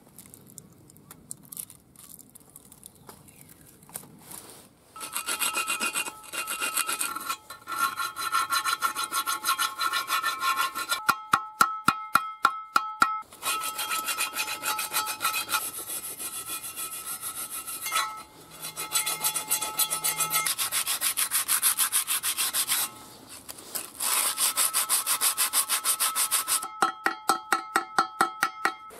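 Rust being scraped off a steel tractor wheel rim with a blade in fast, even strokes, the rim ringing with a steady metallic tone. Twice the strokes turn into sharper, louder separate strikes on the metal.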